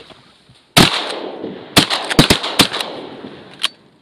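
A volley of shotgun blasts from several hunters firing at ducks in flight: one shot about a second in, a quick cluster of about five near the middle, and a last shot near the end.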